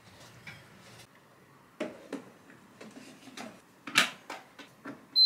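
Light clicks and knocks as a pot of rice is set in an electric rice cooker, with one louder knock in the middle, then a single short, high electronic beep near the end as the cooker is switched on.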